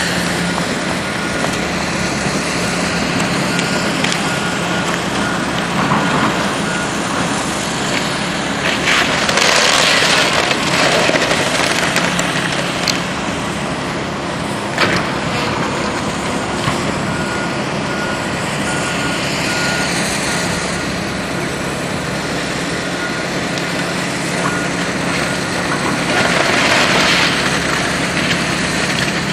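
Heavy diesel demolition machinery running steadily while it tears down a building, with a backup alarm beeping twice for several seconds and several crashes and crunches of wall and debris giving way.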